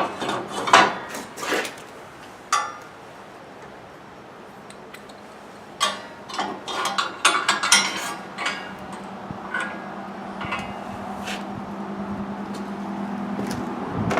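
Scattered metal clanks and knocks, in a cluster at the start and another between about six and nine seconds in. Under them a low steady hum grows a little louder toward the end.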